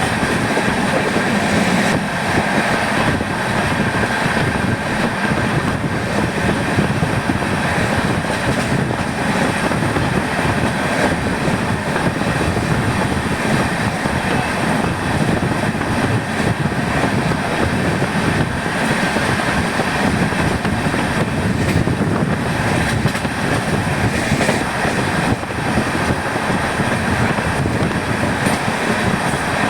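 Passenger train running along the track, heard from aboard: a loud, steady rumble and rattle of wheels on rails with faint irregular knocks.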